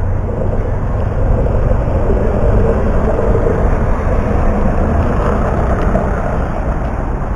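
Steady road traffic on a busy city avenue, with vehicle engines passing close. It is a little louder over the first few seconds.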